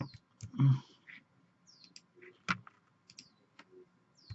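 Scattered light clicks of a computer mouse, with a short muffled low noise about half a second in.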